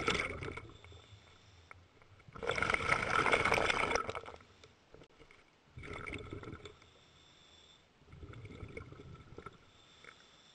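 A scuba diver breathing through a regulator underwater: bursts of exhaled bubbles gurgle and hiss. The longest and loudest comes about two to four seconds in, with softer breaths near six and nine seconds.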